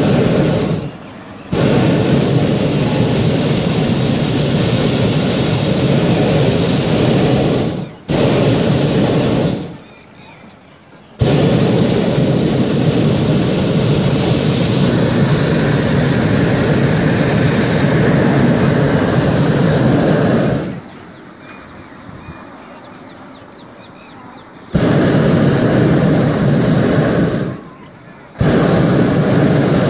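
Hot-air balloon's propane burner firing in a series of blasts, each a steady roar that cuts in and cuts off abruptly. The blasts last from about one to nine seconds, with short quieter gaps between them.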